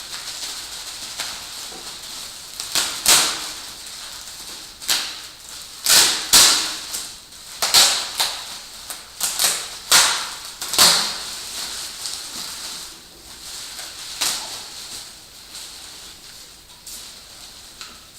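Packaging being pulled and torn off by hand: a run of sharp crinkling rips, thickest in the middle and thinning out near the end.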